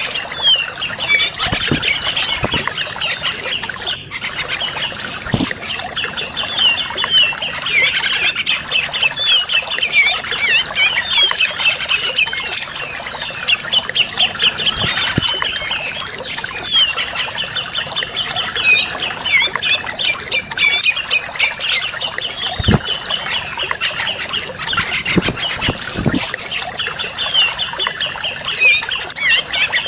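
Cucak jenggot (grey-cheeked bulbul) calling without a break, in fast runs of short, repeated chattering notes.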